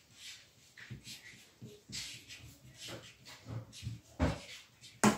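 Felt-tip markers scratching and tapping on paper during colouring, with scattered light knocks on the table, the loudest about four seconds in and near the end.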